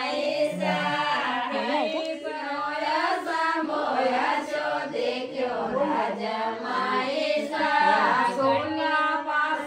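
Several voices singing together in a chant-like style, one continuous song with overlapping melodic lines.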